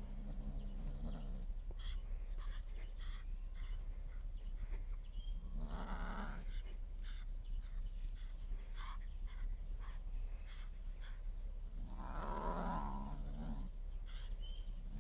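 Kitten growling in play: three low, dog-like growls, each about a second long, near the start, about six seconds in and about twelve seconds in. Light ticks and rustles come between them.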